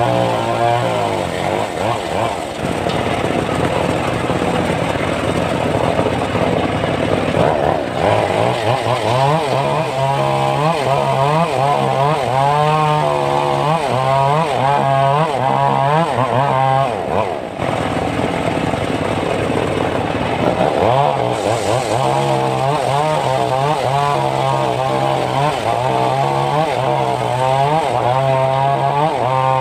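Homemade engine-driven circular saw ripping a short log into boards, the engine and blade running continuously with the pitch rising and falling as the blade is loaded in the cut. The sound dips briefly about halfway through.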